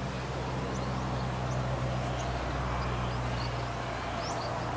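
Steady low hum and hiss of outdoor background, with a few faint, short, high bird chirps scattered through it.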